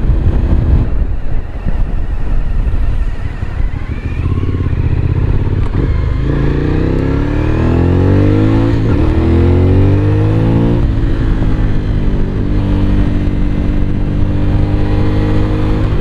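Suzuki V-Strom 1000 XT's 1037 cc 90-degree V-twin through an Akrapovic exhaust, pulling up through the gears: the pitch rises, dips briefly at a gear change midway, rises again, then settles to a steady cruise. Wind noise rushes over the helmet-mounted microphone throughout.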